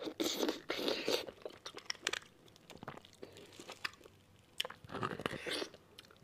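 Close-miked eating of spicy beef bone marrow: biting and chewing with wet mouth clicks, in two bouts, one at the start and another about five seconds in, with scattered small clicks between.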